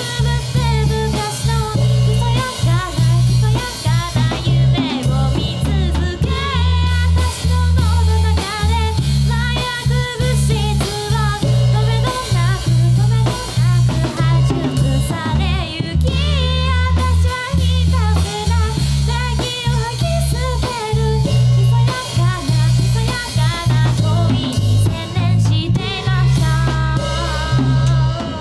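Live rock band playing a song: singing over electric guitar, electric bass and a drum kit with snare hits, at a steady loud level.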